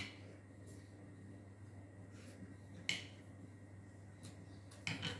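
Eating sounds at a table: short, sharp clicks, one at the start, one about three seconds in and a quick double near the end, over a steady low room hum.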